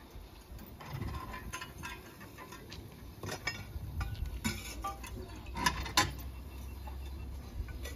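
Sharp metallic clinks and clanks from the crew working on the footplate of a small narrow-gauge steam locomotive, loudest around the middle, with a low steady hum setting in about halfway through.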